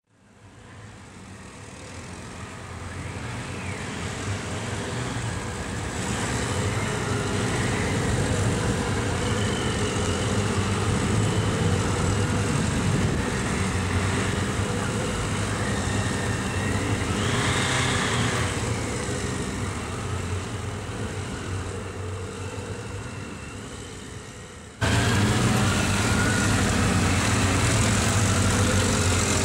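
Several motorcycle engines running at low speed, rising and falling as the bikes weave slowly through a tight cone course. The sound fades in at the start, has a brief higher-pitched sound just past the middle, and jumps suddenly louder about 25 seconds in.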